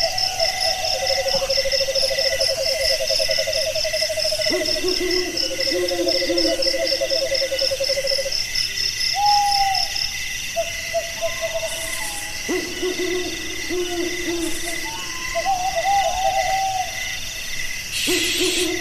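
Night chorus: insects chirping in steady rapid pulses, with repeated low hooting calls and longer wavering held notes from night animals over them. A brief hiss comes near the end.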